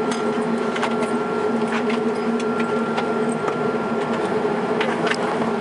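Saab 340B's twin General Electric CT7 turboprops running at taxi power, heard inside the cabin as a steady drone with a held tone. Light clicks and rattles come through it every so often.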